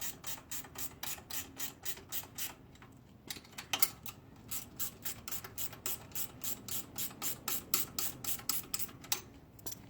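Ratcheting 7/16-inch wrench clicking in quick regular strokes, about five clicks a second, as the T-bar bolts are snugged up. The clicking pauses briefly about three seconds in and again near the end.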